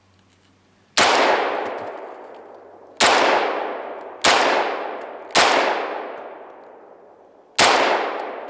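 Semi-automatic pistol firing five single shots at uneven intervals, each crack followed by a long echo that fades away. The pistol is cold-soaked, having sat out for over an hour at about 18 °F.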